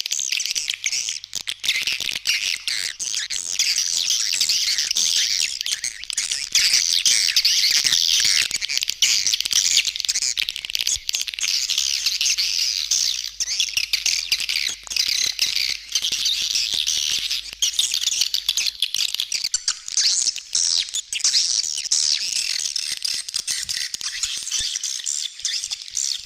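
Swiftlet calling sound: a dense colony chorus of swiftlets twittering, rapid high chirps and clicks packed together without a break. It is a lure call of the kind played to draw swiftlets in to roost and nest.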